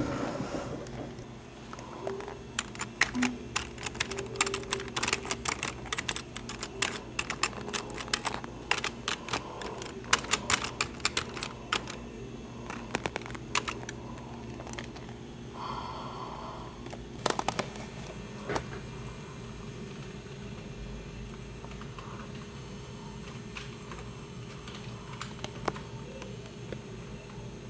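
Typing on an HP computer keyboard, the keys pressed by a furry costume paw: irregular bursts of key clicks from about two seconds in, thinning out and mostly stopping after about eighteen seconds. A steady low hum runs underneath.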